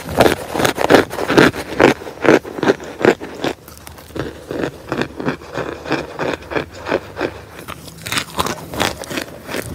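Chunks of pressed potato starch and laundry starch being crushed: a run of crisp crunches about two a second, quieter for a few seconds in the middle.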